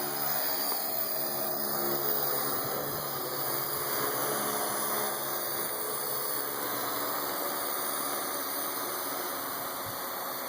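Parrot AR.Drone 2.0 quadcopter's four electric motors and propellers running steadily as it flies to its standby point under autopilot, a constant pitched hum.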